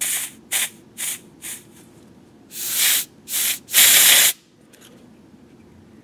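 Compressed air hissing from a blow gun pressed against a Cummins L10 unit injector's STC oil port: four short puffs, then three longer blasts, the last the loudest, cutting off about four seconds in. It is an air test of the oil passage to the small lubrication hole; no air comes through, and the injector is taken to be blocked internally.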